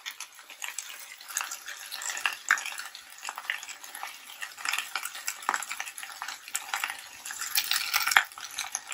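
Raw shell-on shrimp sizzling in hot oil in a stainless steel frying pan, a steady frying hiss dotted with small pops and clicks.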